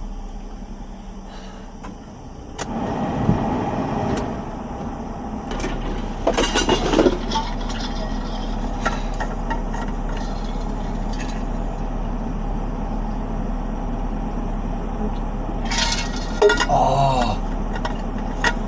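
A vehicle engine running steadily, getting louder about three seconds in, with scattered clinks and rattles over it.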